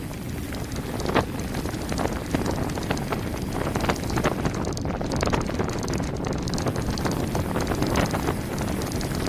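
Mountain bike descending a rough gravel forest road at speed: tyres rolling over stones and the bike rattling, with frequent sharp knocks from bumps, under steady wind noise on the microphone.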